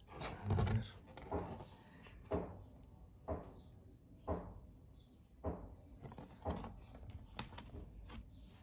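Handling noise from vinyl LPs and their sleeves being moved about by hand: a run of light knocks and rustles, about one a second.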